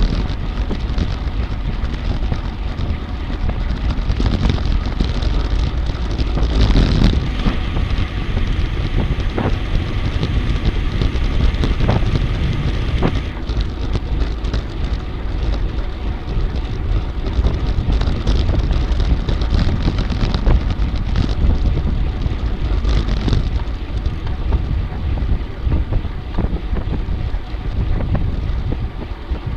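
Steady rumbling noise with wind buffeting the microphone.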